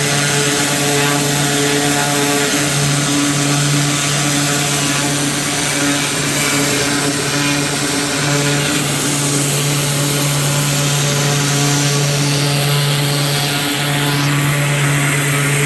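Small gasoline engine running steadily at high speed, with a strong hiss of spray or air over its hum, typical of paver-cleaning equipment such as a pressure washer or backpack blower.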